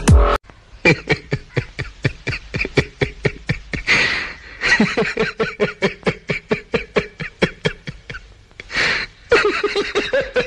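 A man laughing hard in a long run of quick, short 'ha' pulses, about five a second, with two loud gasping in-breaths between the runs.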